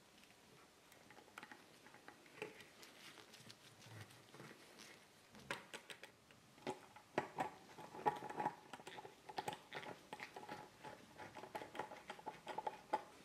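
Small hand ratchet with a hex bit clicking in quick irregular runs as the screen's mounting bolts are turned, with a few light metal taps; the clicking gets louder and denser about halfway through.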